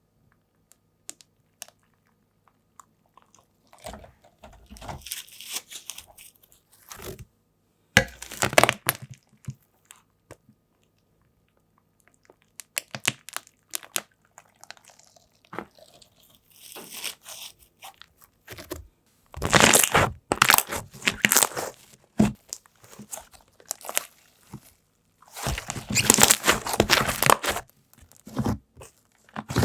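Slime being squeezed, pressed and stretched by hand, giving crunchy crackling and squishing sounds. They come in bursts of a few seconds with short quiet pauses between.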